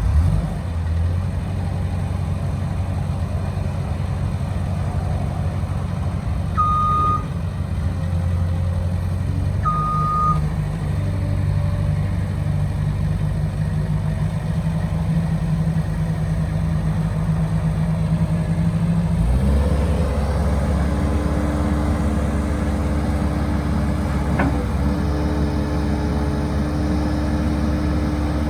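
Caterpillar 242B skid steer's diesel engine running steadily, with two short single-pitch beeps from the machine about a third of the way in. About two-thirds through, the engine note changes and stays at the new speed.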